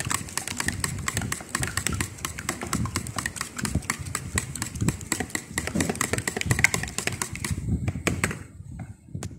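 Metal fork beating eggs and cooking oil in a plastic bowl: rapid, uneven tapping and clicking of the tines against the bowl and through the wet mix. It stops about eight seconds in, with one last click near the end.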